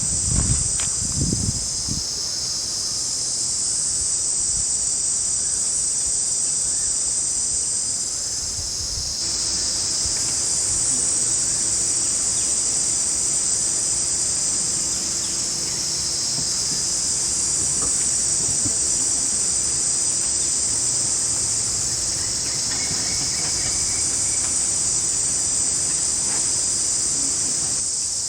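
Forest insects chorusing: a dense, steady high-pitched shrill, with a few low rustles or knocks in the first two seconds.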